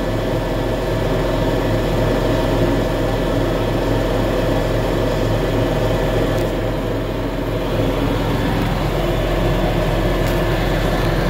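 LS XR4140 tractor's diesel engine running steadily at about 2,500 rpm during a manual DPF regeneration, heard from inside the cab.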